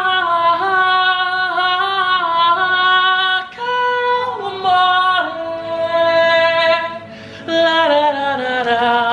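A woman singing a slow melody in long held notes that slide between pitches, with two short breaths or breaks. No instruments stand out.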